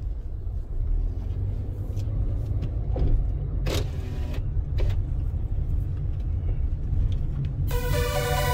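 Steady low road and engine rumble of a car driving on the expressway, heard from inside the cabin, with a few faint clicks near the middle. Electronic music comes in near the end.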